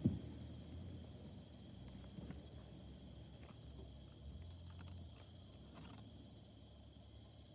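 Night insects trilling steadily in a constant high pitch, after the rumble of a firework burst dies away at the very start; a few faint distant pops follow.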